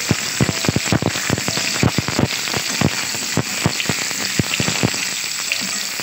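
Whole boiled potatoes frying in hot oil in an aluminium kadai, turned with a metal spatula: a steady sizzle with frequent sharp, irregular crackles and pops of spitting oil.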